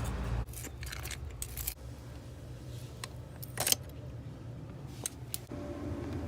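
Small metal objects jangling and clinking, like keys, in short irregular clicks, the sharpest about three and a half seconds in, over a low rumble and hum.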